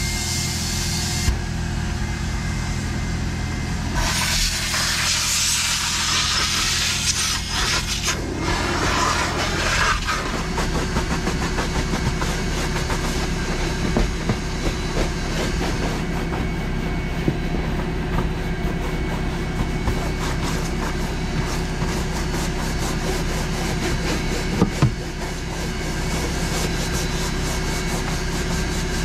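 A vacuum motor runs with a steady hum, with loud hissing during the first ten seconds. After that a stiff-bristled brush scrubs a rubber floor mat in rapid, scratchy strokes.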